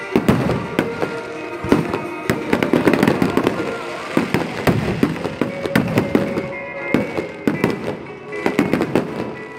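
Aerial fireworks display: a dense, continuous barrage of shell bursts, bangs and crackling, easing briefly just before the end.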